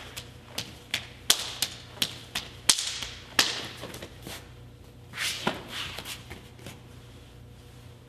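Hands slapping and trapping against a partner's forearms in a karate hand-trapping drill, the gi sleeves snapping with each move: a quick, irregular run of sharp slaps, thinning out after about five and a half seconds.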